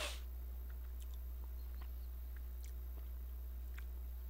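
Close-miked mouth and breath noise: a short puff of breath into the microphone at the start, then a few faint small clicks, over a steady low hum.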